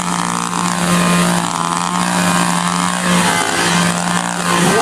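Two-stroke chainsaw engine running hard, its pitch rising and falling as the throttle is worked.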